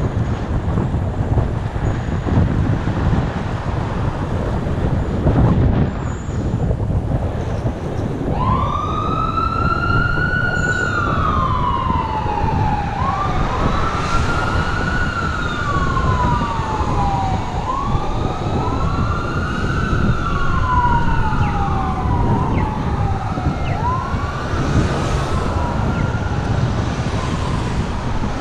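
Fire truck siren wailing, starting about eight seconds in, each wail rising quickly and falling slowly, repeating every four to five seconds with the wails overlapping. Wind rumbles on the helmet-mounted microphone of a moving bicycle throughout.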